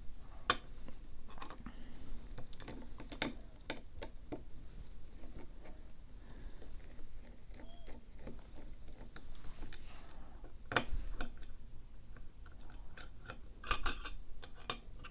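Small metal lock and tools being handled: scattered light clicks and taps, with a louder cluster of clicks near the end.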